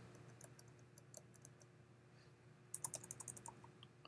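Computer keyboard keystrokes: a few sparse, faint taps, then a quick run of several keys about three seconds in, over a faint steady hum.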